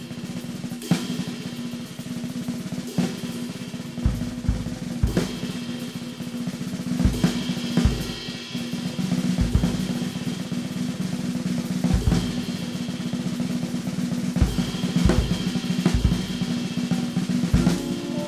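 Jazz drum kit taking the lead: busy snare and cymbal work with bass drum kicks at uneven intervals, over a low sustained tone.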